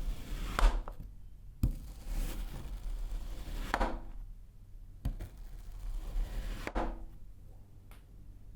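A blade cutting through blocks of kinetic sand: soft grainy crunching strokes that build and fade about every three seconds, with a few sharp clicks in between.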